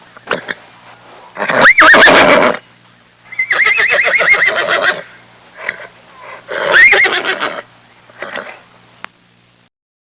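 A horse neighing, three loud whinnies with shorter snorts and calls between them; the longest, in the middle, has a rapid quavering trill.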